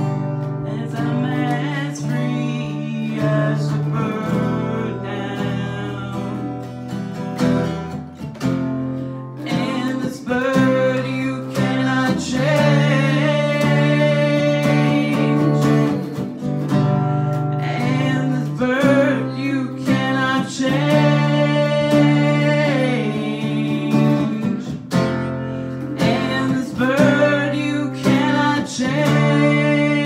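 Acoustic guitar strumming chords while a woman sings lead into a microphone, a live voice-and-guitar performance of a slow rock song.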